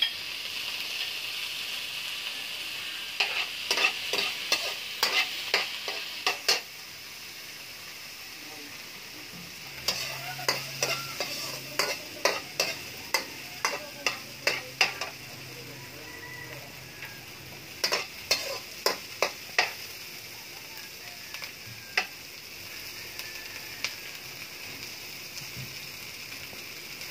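Onions, garlic and peas sizzling in oil in a metal wok, with a steady frying hiss. A metal spatula clicks and scrapes against the pan in three runs of quick strikes as the vegetables are stirred, then once more near the end.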